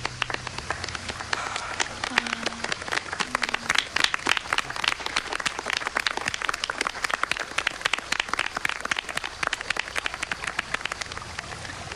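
A group of people clapping and applauding: dense, many-handed clapping that builds over the first few seconds, is loudest about four seconds in, then carries on steadily.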